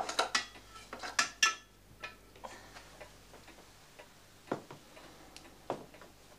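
Metal fire tools, a coal shovel and a poker, clinking against a tiled kitchen stove: a quick run of sharp clinks in the first second and a half, then a few single soft knocks.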